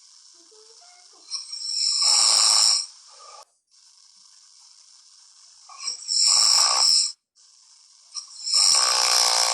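A sleeping person snoring: three loud snores, each about a second long and roughly four seconds apart, with a steady faint hiss between them.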